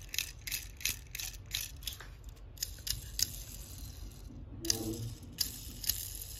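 Light, irregular plastic clicks and ticks, several a second, from a small plastic toy car being turned over and handled in the fingers.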